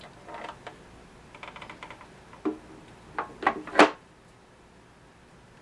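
Hard plastic parts of a Bionaire BCM7255 humidifier being handled: light rattling and ticking, a knock, then a few louder clacks about three and a half seconds in.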